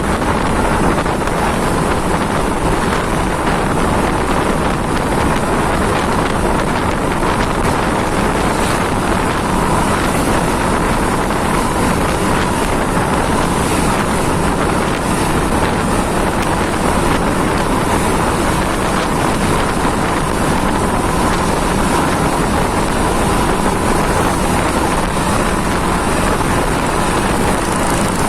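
Steady, loud vehicle and road noise on the move, with wind buffeting the microphone.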